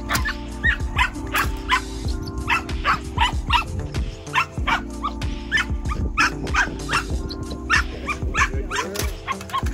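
A young working-shepherd puppy barking over and over in short, high-pitched yaps, about two a second. It is excited prey-drive barking while held back on a leash and teased with a rag.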